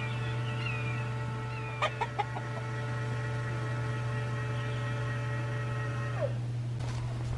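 Ladies First automatic chicken door opener's motor running with a steady whine as the door lifts, its pitch dropping as it stops about six seconds in. Chicks peep a few times at the start, with a couple of clicks about two seconds in and a steady low hum underneath.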